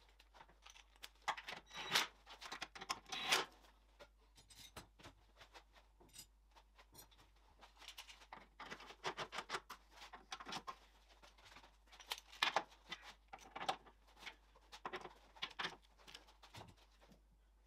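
Faint, scattered clicks, taps and rustles of hand tools and clothing as a mechanic works on his back under a car, tightening bolts. They come in small irregular clusters with near-silent gaps between them.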